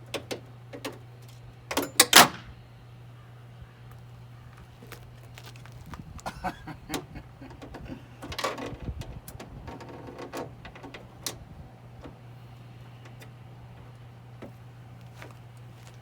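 Hand tools working on the door-handle bolts inside a truck's door: scattered metallic clicks and rattles, with a loud double metal clank and ringing about two seconds in, then more rattling and fumbling in the door cavity. A steady low hum runs underneath.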